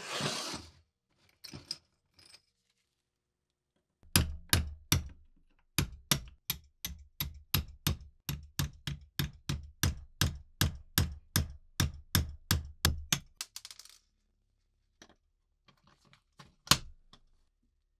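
Small hammer tapping a steel pin punch, about three sharp strikes a second for around ten seconds, driving the hinge pin out of an antique squeeze lighter's brass case held in a bench vise. A single sharp click comes near the end.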